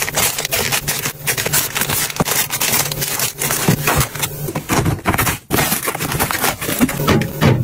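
Plastic food wrappers crinkling and rustling as the packets are handled and stacked into a metal wire basket: a dense run of crackles. After a brief break about five and a half seconds in, cardboard rubs and scrapes as a taped box is opened.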